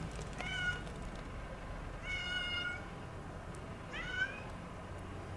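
A stray cat meowing three times, each about one and a half to two seconds apart: a short meow, a longer drawn-out one, then a short one rising in pitch near the end. It is a cold stray cat crying out in heavy snow.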